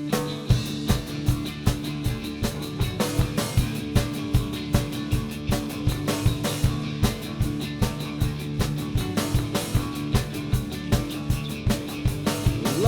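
Live rock band playing an instrumental passage between sung lines: a steady, even drum beat under held guitar and bass chords.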